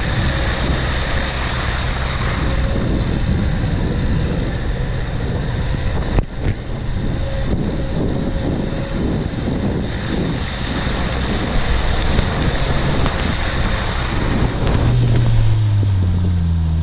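Lada Niva driving off-road through mud and puddles, heard from a camera mounted on the outside of the car: wind buffeting the microphone over the engine running and the tyres churning and splashing through water. Near the end a stronger, deeper engine note comes in and falls in pitch.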